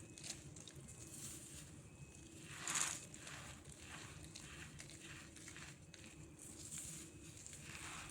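Dried cornstarch crumbs being crushed: a run of soft, crackly crunches, with one louder crunch about three seconds in.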